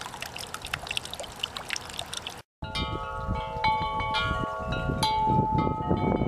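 A small garden fountain trickling and splashing into its stone basin. After a brief cut about two and a half seconds in, a set of long tubular wind chimes rings, its notes struck one after another and hanging on over each other.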